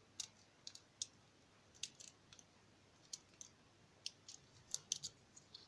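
Faint, irregular clicks of a thin lock pick working the wafers of a Chinese slider/wafer lockout padlock held under light tension, a few ticks a second at uneven intervals.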